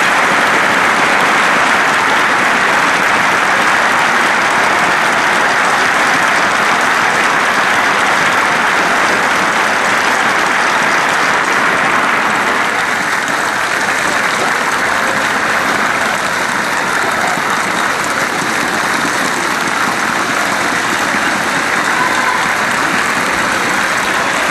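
Crowd applauding steadily, dense clapping without break, easing a little about halfway through.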